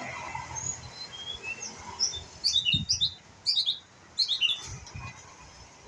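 White-rumped shama (murai batu) singing: three quick bursts of short, bright chirping notes in the middle, with scattered softer single notes around them, as a bird learning its song.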